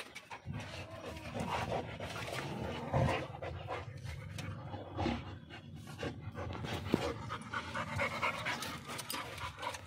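Labrador retrievers panting and sniffing close to the microphone, in irregular breathy puffs.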